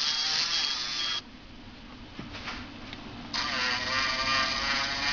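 LEGO Mindstorms RCX robot's small electric motor whining through its plastic gear train as it works the tow truck's tilting ramp. It cuts off suddenly about a second in, then starts up again about two seconds later.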